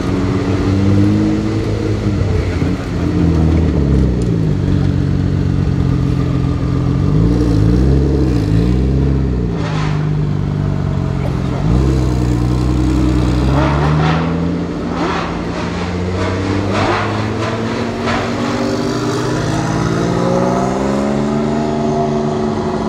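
Porsche 935 race car's twin-turbo flat-six running at low speed and being blipped, its revs swinging up and down. There are several sharp cracks about halfway through, and the revs climb near the end.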